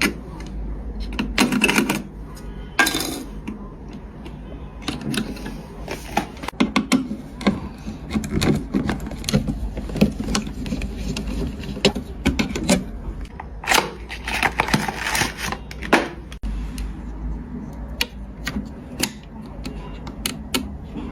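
Scattered clicks, taps and rustling as computer components and their packaging are handled, with longer rustles at about two seconds, three seconds and around fourteen seconds in.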